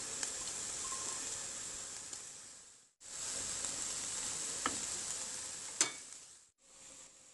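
Green beans, onion and garlic sizzling in olive oil in a frying pan as they are stirred, with two light clicks of the wooden spatula against the pan about two thirds of the way through. The sizzle fades out about three seconds in, comes back, and fades again near the end.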